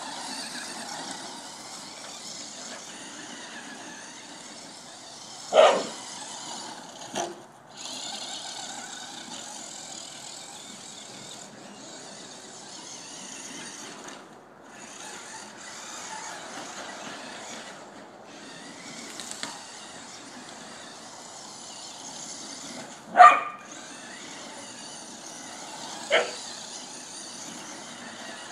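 Electric radio-controlled car (Duratrax Evader) running across grass, its motor giving a steady high whine that stops briefly a few times. A dog barks sharply a few times over it.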